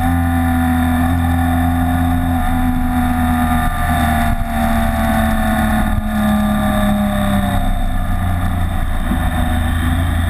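BMW K75 motorcycle's three-cylinder engine running under way, heard from a windshield-mounted camera along with wind rush. The engine note dips briefly about four and a half seconds in, then slowly falls for a few seconds as the revs ease off.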